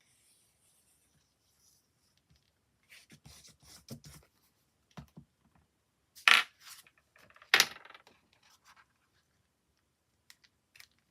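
Paper and craft materials handled on a desk: scattered light clicks and rustles, then two sharp knocks a little over a second apart near the middle.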